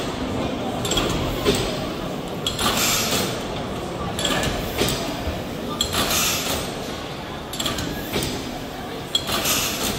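A 1903 Burnley Iron Works cross-compound Corliss-valve mill steam engine running slowly: a recurring hiss with its strokes and light clicks and clanks from its moving valve gear and rods, with a murmur of people talking in the background.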